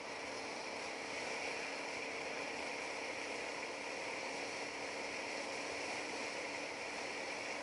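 Motorcycle cruising at a steady speed on a sealed road: the engine drones evenly under a steady rush of wind and road noise, with no change in speed or gear.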